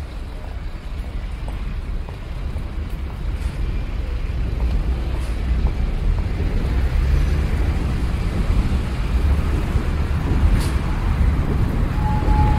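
City street traffic: a steady low rumble of passing cars and engines, growing a little louder a few seconds in. A steady high tone starts near the end.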